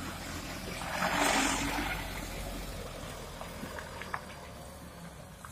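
Mitsubishi Fuso Canter dump truck's diesel engine running as the truck drives slowly past, its low rumble fading as it pulls away. A brief hiss about a second in.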